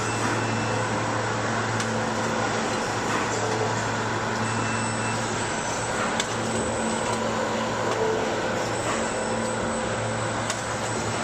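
Automated tray feeder and fixed-weight weighing machine on a meat-packing line running: a steady low mechanical hum, with a few light clicks now and then.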